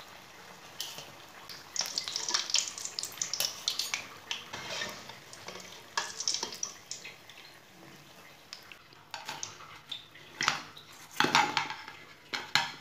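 Wire spider strainer scraping and clinking against a metal karahi as fried samosas are lifted out of the oil, over a faint sizzle of the hot oil; a few louder clanks with a short ring come near the end.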